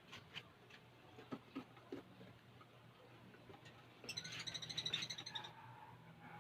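Lovebirds chattering: a few light clicks, then about four seconds in a rapid run of high chirps lasting a second and a half.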